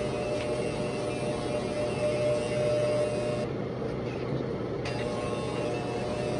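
Corded electric hair clippers running with a steady buzz while cutting a boy's hair, the sound dulling briefly a little past halfway.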